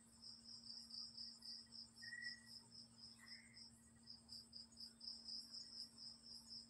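Crickets chirping faintly in a steady, even pulsing rhythm of about four chirps a second, over a faint steady low hum.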